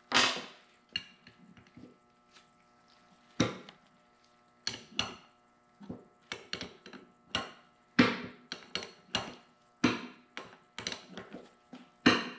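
Wrenches and steel hydraulic fittings clinking and knocking on a workbench as hydraulic hoses are handled and their fittings assembled: many irregular sharp metal clinks with short ringing. A faint steady hum runs underneath.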